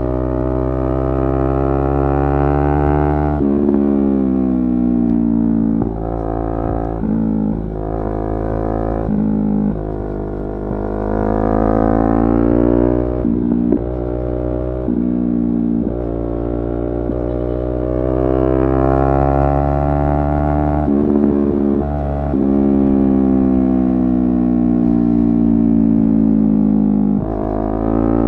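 Yamaha R3's 321 cc parallel-twin engine pulling through the gears: its pitch climbs steadily and drops sharply at each upshift, about three and a half seconds in and again around thirteen seconds, then holds a steady cruising tone for long stretches, with a few short dips in between.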